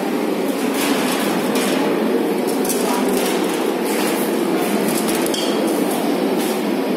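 A steady machine-like noise runs throughout, with a few light metallic clinks and knocks as copper tubing is handled against a stainless steel tank.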